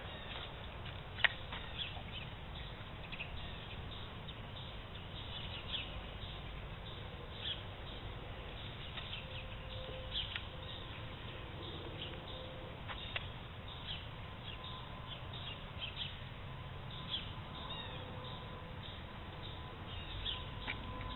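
Birds chirping and calling faintly over a low, steady background noise, with one sharp click about a second in and a faint steady tone that comes and goes in the second half.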